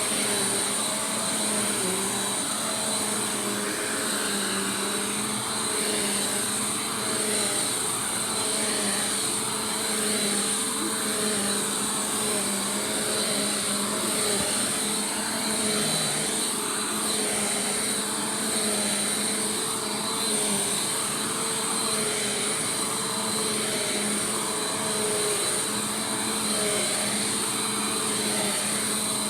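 Bissell PowerForce Compact Turbo upright vacuum cleaner running, a steady motor whine with a high hiss, its loudness wavering slightly.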